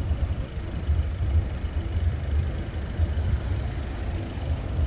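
Low, uneven rumble of road traffic.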